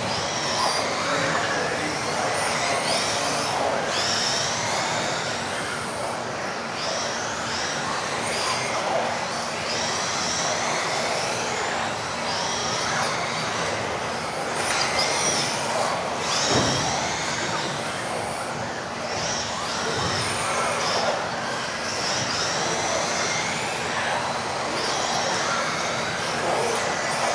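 Several electric 1:10 off-road RC buggies with brushless 'modified' motors racing, their high motor whines overlapping and rising and falling with throttle. A single knock comes a little past halfway.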